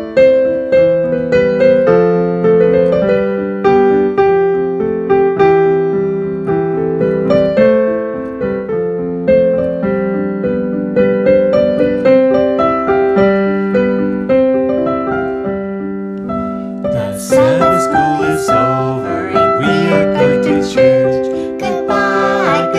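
Electric piano or keyboard playing the opening of a children's goodbye song, a steady run of chords and melody. Near the end, singing joins the keyboard.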